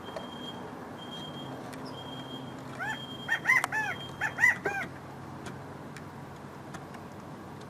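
California quail calling: a quick run of about seven short, arched, whistled notes, bunched a little past the middle.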